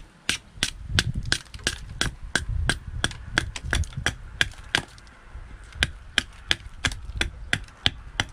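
A large knife chopping repeatedly into a birch blank braced on a wooden block, roughing out the shape of a spoon: sharp wooden strikes about three a second with a dull thud under each, with a short pause a little past halfway.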